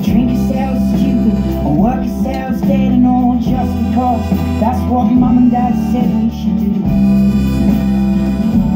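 Harmonica played over backing music, with held and bending notes.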